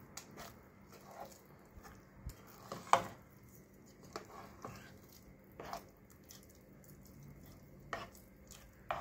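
A spoon stirring thick cooked chana dal, dal paste and jaggery syrup in a stainless steel pot. It makes soft wet squelching with irregular knocks against the pot, the loudest about three seconds in.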